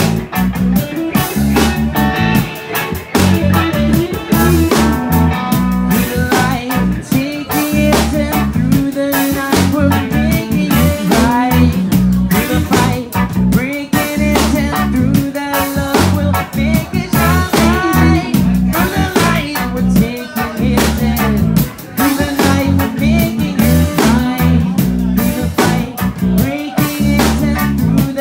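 Live reggae band playing, with electric bass guitar, electric guitar and drum kit.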